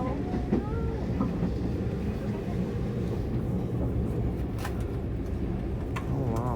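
Steam train running: a steady low rumble with a few sharp clicks from the rails.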